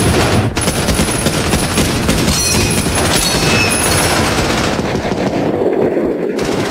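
Dense battle gunfire from a war-film soundtrack: continuous machine-gun and rifle fire packed together over a steady low rumble, easing slightly in the high end near the end.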